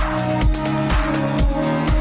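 Background electronic dance music with a steady kick-drum beat, about two beats a second, under sustained synth chords.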